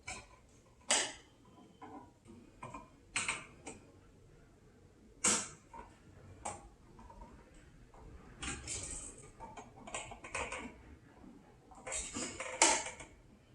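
Small irregular clicks and short scrapes of a screwdriver and wire as a ground wire is fastened to a light switch's screw terminal, with a louder cluster near the end.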